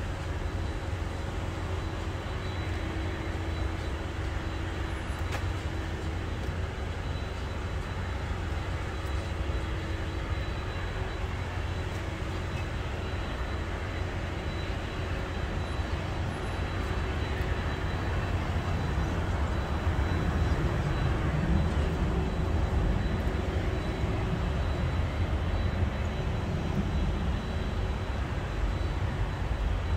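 Distant airliner jet engines, a steady low rumble that swells about two-thirds of the way through and stays up to the end.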